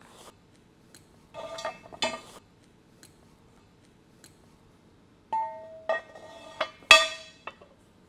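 Steel square-tube parts of a yoke rack clanking and ringing as a plate-storage peg section is handled and fitted onto the steel mainframe: a few knocks about a second and a half in, then a run of louder clanks from about five seconds, the loudest near seven seconds.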